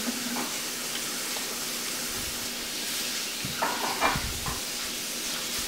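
Steady hiss of a kitchen tap running while dishes are washed, with a few brief clinks about three and a half to four seconds in.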